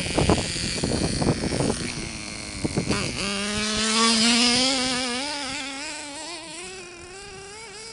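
Clattering knocks for about three seconds. Then the small motor of a radio-controlled off-road truck starts a steady buzzing tone that rises slightly in pitch and wavers, growing fainter as the truck drives away.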